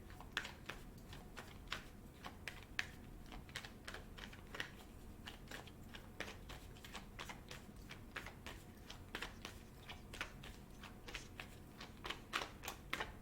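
Cards of a Moonology oracle deck being shuffled by hand before one is pulled: a run of light, irregular clicks and taps, a few a second, getting busier and a little louder near the end.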